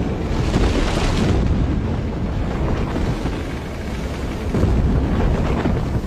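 A deep, steady rumble of grinding, crumbling rock: a sound effect for a giant stone monster rising.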